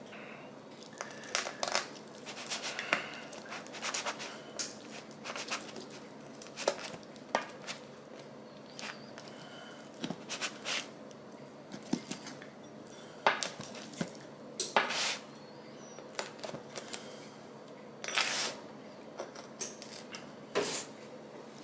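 Irregular clinks, taps and scrapes of kitchen utensils against a pan and plates while a freshly baked pizza is moved around and portioned.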